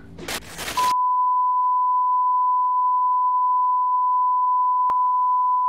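Steady single-pitch test-tone beep, the stand-by tone of a 'technical difficulties' screen, starting about a second in and held without change.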